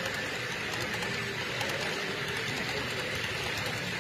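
HO-scale covered hopper cars rolling along model track, a steady small clatter of metal wheels on rail.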